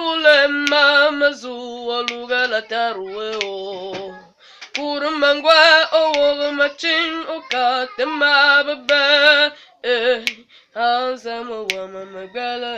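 A boy singing solo with no accompaniment: long held notes with vibrato, in phrases broken by short pauses about four seconds and ten seconds in.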